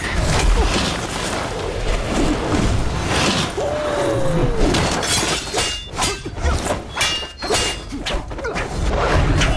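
Sword-fight sound effects from a martial-arts drama: a rapid series of sharp hits and sword swishes with things shattering, with music underneath.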